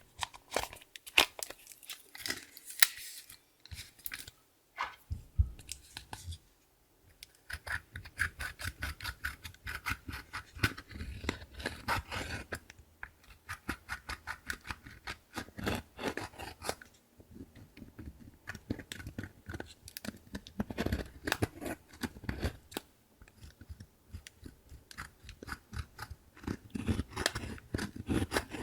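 Slime being squeezed, stretched and folded by hand: a dense run of sticky clicks, crackles and small pops, with a short pause about six seconds in.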